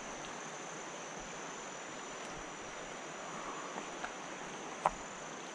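Steady rush of a flowing river's current, with a few light clicks about four and five seconds in as stones shift underfoot on a rocky bank.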